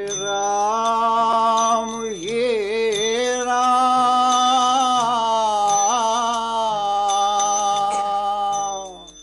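Music: the opening of a Hindi devotional song (bhajan), a voice holding one long sung note that wavers about two seconds in and again about six seconds in, then fades out near the end.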